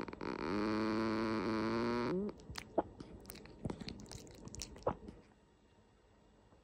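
Domestic cat snoring through a slightly stuffy nose: one long snore with a steady pitch and a hiss above it, ending about two seconds in, then a few seconds of faint clicks and small squeaks.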